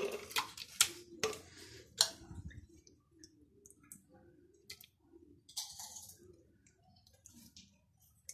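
Metal spoon clicking and scraping against a glass bowl and plastic jar as sugared orange pulp is spooned into the jar, with soft wet plops of pulp. A run of sharp taps comes in the first two seconds, then fainter, sparser ones.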